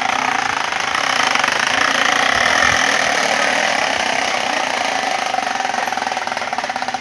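Plastic bottle fixed to a bicycle's front fork, clacking fast against the spokes of the turning wheel. It makes a motorbike-like rattle that climbs in pitch and loudness to a peak two or three seconds in, then slowly fades.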